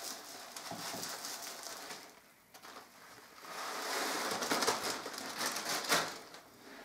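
Pearl bone-glue granules trickling from a plastic bag into a plastic measuring cup with a soft pattering hiss, then a short pause and a longer stretch of the plastic bag crinkling as it is handled.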